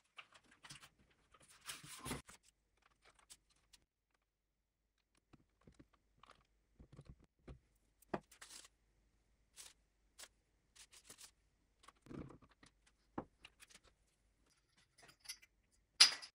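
Faint, scattered handling sounds of hands working on a wooden drawer front: light clicks, taps and short rustles as masking tape and a glue bottle are handled, with a louder sharp rustle near the end.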